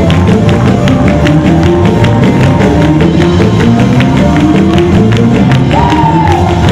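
Live gospel band playing a fast, loud praise-break groove: drum kit keeping a quick, steady beat under bass, keyboard and electric guitar.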